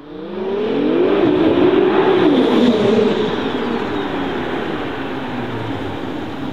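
Modified Nissan GT-R R35's twin-turbo V6 accelerating, its note climbing for about two and a half seconds. It then eases off and runs on at a lower, steadier note as the car comes closer.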